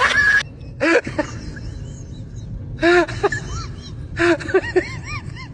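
A German Shepherd-type dog whining in short rising-and-falling cries: one about a second in, a pair around the middle, and a quick run of four or five near the end. It opens with the abrupt cut-off of loud shouting from another clip.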